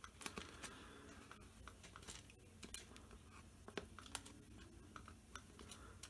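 Very faint, irregular little clicks and scratches of fingers fiddling a small nut onto the threaded shaft of a quartz clock movement through a 3D-printed clock face. The fit is too tight, so the nut will not catch.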